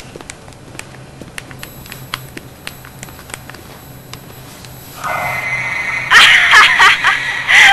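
Soft irregular clicks, like the keys of a mobile phone being pressed. About five seconds in a steady tone starts, and a second later loud wavering high-pitched sounds take over.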